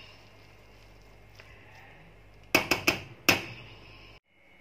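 A metal spoon clinking against a stainless steel pot of cooked rice: a quick run of about five sharp metal knocks a little past halfway, over a faint steady hum.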